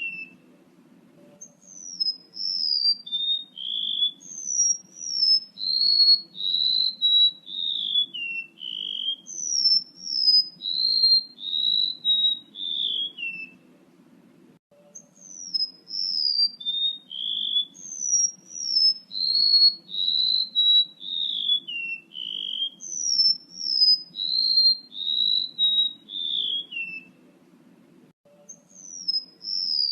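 Male rementuk laut birdsong played as a lure call: a string of short, clear whistled notes, each phrase starting high and stepping down in pitch. The same sequence of about 13 seconds repeats after short pauses about halfway through and near the end. A faint steady low hum runs underneath.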